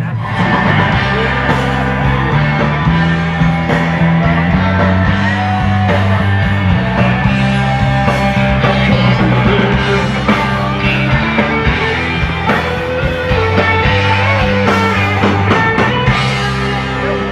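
Rock music with a steady bass line and electric guitars.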